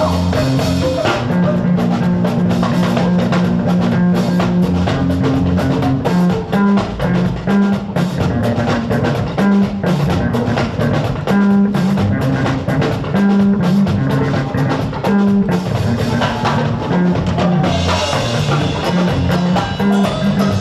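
Music with a busy drum beat of kick, snare and rimshots over a bass line. A brighter cymbal-like wash comes in near the end.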